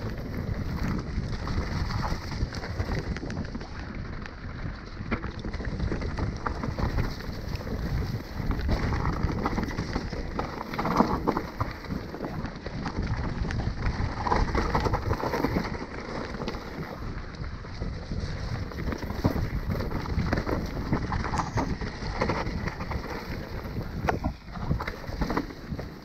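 Mountain bike descending a dirt and leaf-covered trail at speed: a constant rumble of tyres and wind buffeting the microphone, with scattered sharp clicks and rattles from the bike over bumps.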